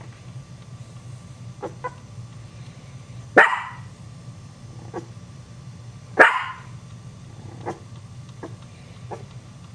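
A small dog barking twice, loud and sharp, about three and a half and six seconds in, with several fainter short yips between the barks, startling the Chihuahua puppies.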